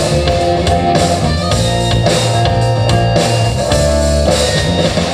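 A rock band playing: electric guitar and bass over a drum kit with regular drum and cymbal strokes.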